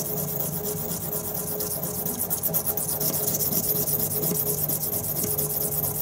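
Steel knife blade pushed back and forth over the coarse side of a soaked whetstone: a continuous scraping of many quick strokes, grinding the nicks out of the edge.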